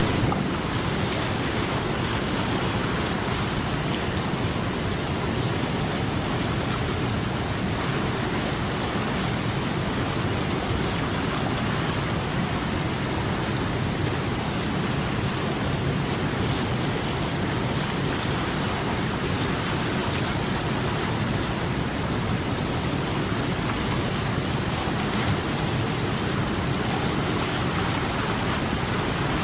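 Steady rushing water: an even, unbroken wash of noise with no separate events.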